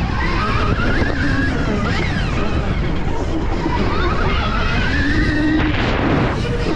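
Electric dirt bike's motor whining, rising in pitch as the throttle opens, dropping off about two seconds in, then climbing again, over heavy wind noise on the microphone.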